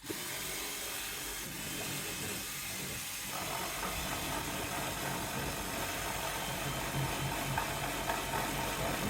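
A power cutting tool running steadily under load, a loud mechanical noise whose tone shifts about three seconds in, cutting through the car's wiring harness.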